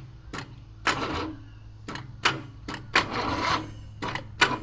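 Starter solenoid on a Harbor Freight 670cc V-twin clicking again and again at uneven intervals, with a short rattle about three seconds in, as the starter fails to turn the engine over: the battery is too weak, which the owners take for a dead battery.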